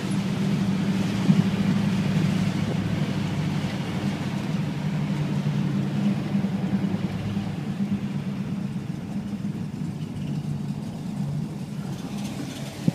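Big-block V8 engine running at low, steady revs after a drag run, heard from inside the car's cabin, slowly getting quieter.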